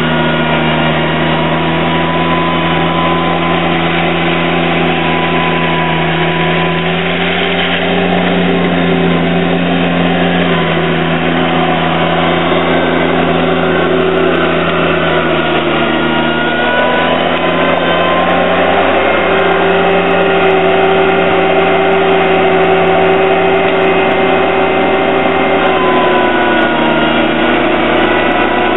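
John Deere 322 garden tractor's three-cylinder engine running steadily at working speed as the tractor pushes gravel with its front blade, its pitch shifting slightly a few times.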